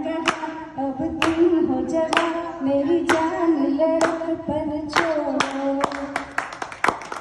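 A woman singing long held notes, with hand claps keeping time about once a second.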